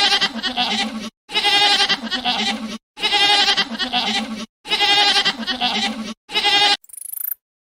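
A young farm animal bleating five times in a row, each bleat about a second long with a quavering waver, the bleats cut apart by short gaps. A brief faint high sound follows near the end.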